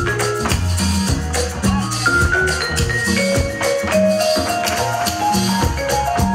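Dance music playing for a stage showcase, with a steady beat, a repeating bass line and a melody of held notes.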